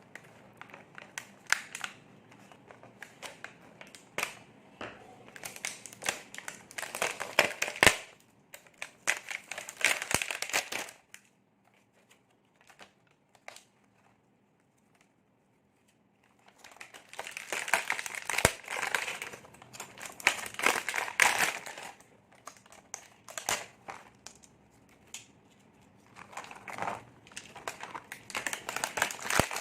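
Toy packaging being handled and opened, crinkling and rustling in bursts, with a pause in the middle and a couple of sharp clicks or snaps.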